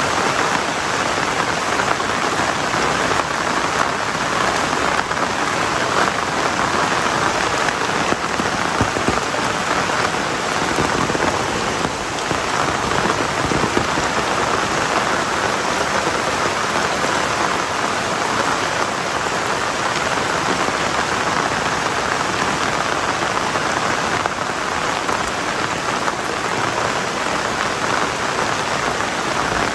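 Heavy rain falling in a torrential downpour, a dense, steady hiss of drops on surfaces.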